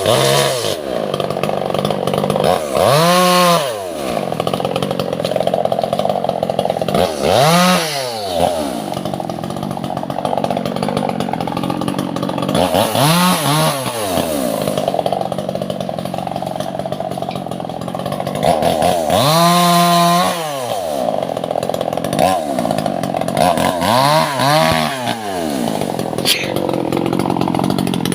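Two-stroke chainsaw cutting Albasia (sengon) wood. The engine runs steadily throughout and is revved up and back down five times, each rev rising and falling in pitch over about a second.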